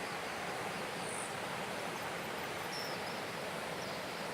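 Steady rush of water at a reservoir dam, with a few faint, short high chirps over it.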